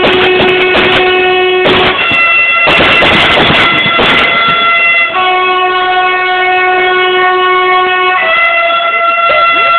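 Approaching train sounding its horn in long, unbroken blasts, the pitch switching between notes about five and eight seconds in, with a rush of noise about three seconds in.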